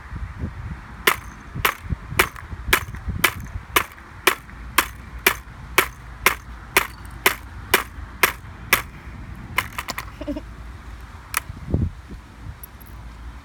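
Hammer blows on a MacBook laptop: a steady run of about sixteen sharp strikes, two a second, then a few scattered hits near the end.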